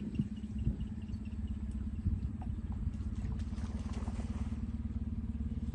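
Boat's outboard motor running steadily at low speed, an even low hum.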